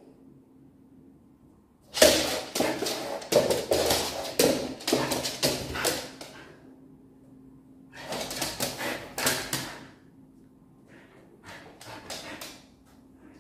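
Siberian husky giving short barks and yips in three runs: a long run about two seconds in, another about eight seconds in, and a weaker one near the end.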